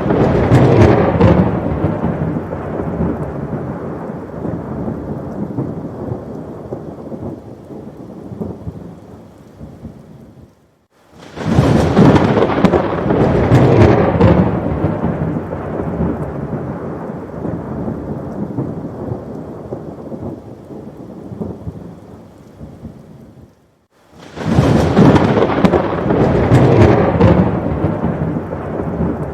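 Thunderstorm: heavy rain with rolling thunder that swells loud and then fades away over about ten seconds. The swell comes three times, each broken off by a brief dropout as the same stretch of recording repeats.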